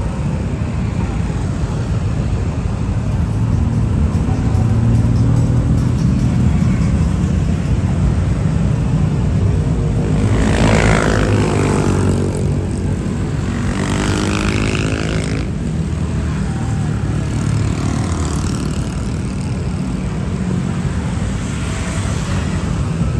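Steady low rumble of road traffic, with a motor vehicle passing close about halfway through, its engine pitch dropping as it goes by.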